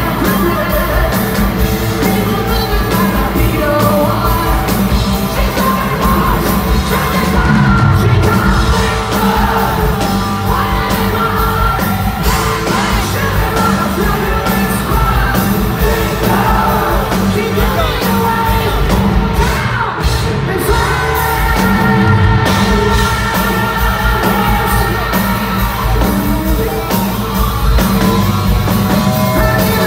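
Live hard rock band playing loudly, with a male lead singer over distorted electric guitars, bass and drums.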